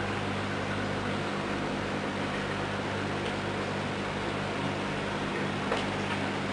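Aquarium pump running: a steady electrical hum over an even hiss, with one faint click near the end.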